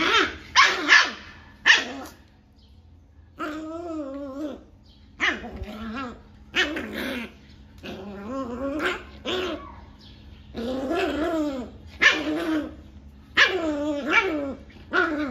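Rottweiler puppy about 40 days old barking and growling at being rubbed dry in a towel after a bath. Three short sharp barks in the first two seconds, then a series of longer growls that waver in pitch.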